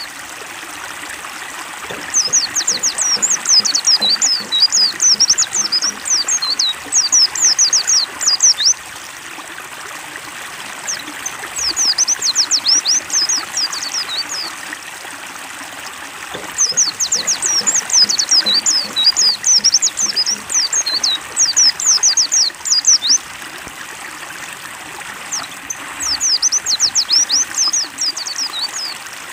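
Water-therapy track for pleci (white-eyes): rapid, high twittering white-eye song in four bursts of several seconds each, over steady trickling, splashing water.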